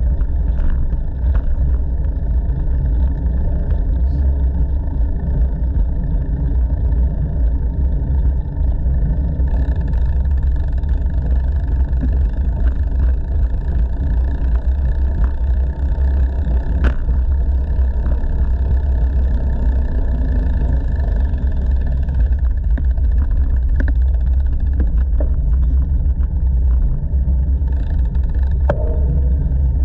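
Steady low rumble of wind buffeting a GoPro's microphone, mixed with tyre noise from a bicycle rolling along the path, with a couple of sharp clicks about halfway through and near the end.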